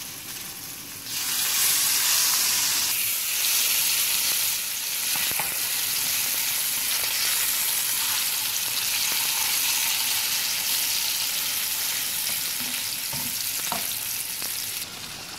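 Rohu fish slices sizzling as they fry in hot oil in a frying pan, with a spatula turning them over. The sizzle gets louder about a second in and stays steady.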